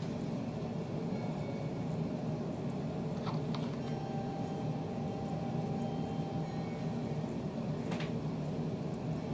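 A steady low hum, like a fan or air conditioner, with a few faint clicks about three seconds in and again near the end.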